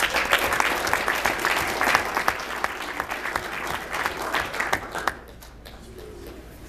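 Audience applauding with dense, steady clapping that stops abruptly about five seconds in.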